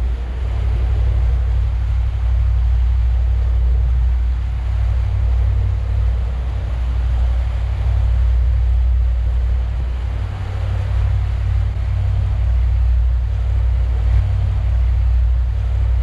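1998 Sea Ray 330 Sundancer cruising under way: a steady low rumble of its MerCruiser 454 inboard engines and water along the hull, with wind buffeting the bow-mounted microphone.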